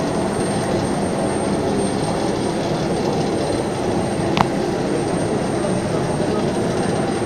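Jet aircraft noise running steadily: a low rumble with a thin, steady high whine, and one sharp click about four seconds in.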